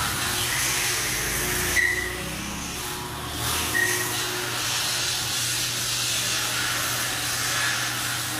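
A workshop machine running: a steady hiss over a low hum, with brief high squeaks about two seconds and four seconds in.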